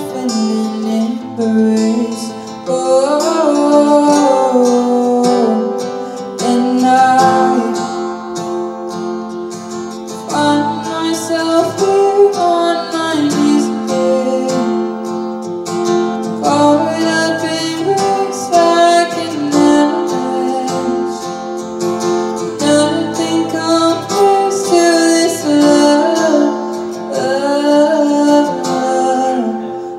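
A woman singing a slow ballad live, accompanied by a strummed acoustic guitar.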